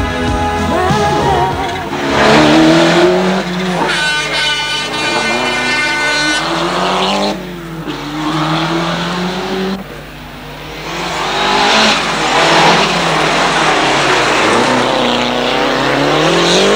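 Rally car engine revving hard, its pitch rising and falling again and again with gear changes and lifts as it comes through the stage. The sound dips briefly about ten seconds in, then builds again as the car arrives.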